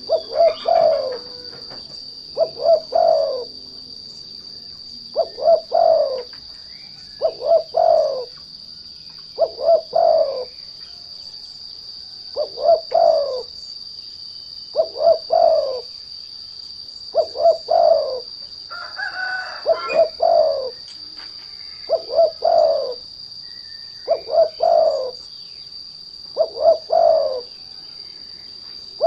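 Spotted dove (derkuku) cooing: a short phrase of a few low notes, repeated about every two seconds, as a lure call to set other doves singing. Under it runs a steady high-pitched whine, and a different, higher call breaks in once about two-thirds of the way through.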